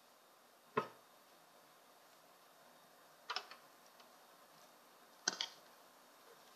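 Three sharp clicks a couple of seconds apart over a quiet room: small nail-care items handled and set down on a wooden table.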